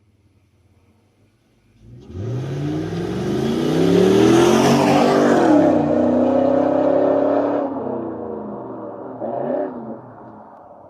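A motor vehicle's engine accelerating: its pitch climbs for about two seconds, holds, then drops away, with a brief second rev near the end.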